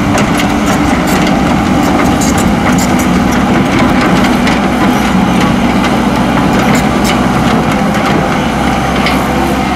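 Heavy diesel engine of earthmoving machinery running steadily, with scattered light clicks and knocks over it.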